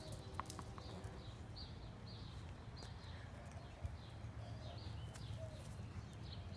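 Faint outdoor ambience: a bird chirping over and over, two or three short high notes a second, over a low steady rumble.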